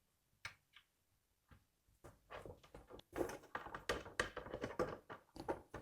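Light taps and knocks of the rack's wooden and metal parts being handled and fitted together as the top piece goes on: a few single taps, then a busy run of clicks and rubbing from about two seconds in.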